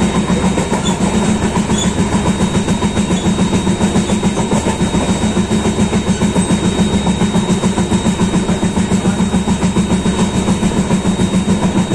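Balaji Express passenger train running at speed: a steady, loud rumble and clatter of the coach's wheels on the rails with a fast, even pulse.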